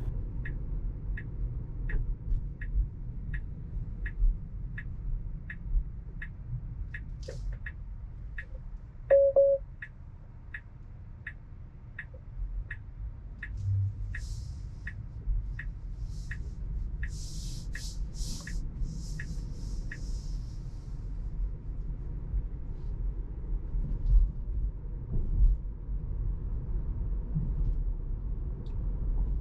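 Turn-signal indicator ticking steadily inside a Tesla's cabin, about one and a half ticks a second, stopping about twenty seconds in, over low road rumble. A short tone sounds near nine seconds in, and bursts of hiss come between about fourteen and twenty seconds.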